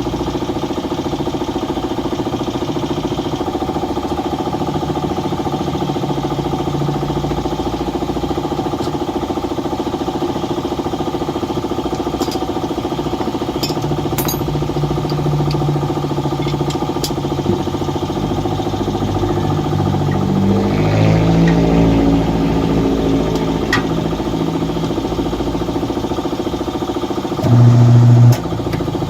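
A machine runs steadily with a motor-like hum, and a few light clicks come through. Near the end a louder low hum starts and cuts off after about a second.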